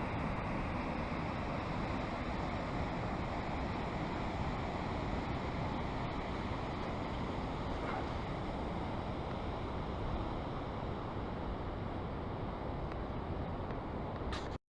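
Deer Creek Falls' steady rush of falling water, running high, which cuts off abruptly just before the end.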